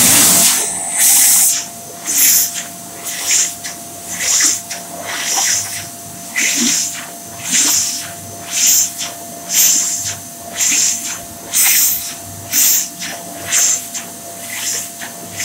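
PHS Airstream Vitesse hand dryer running: a steady motor whine under a loud rush of air. The air noise swells and drops about once a second as hands move in and out of the airflow.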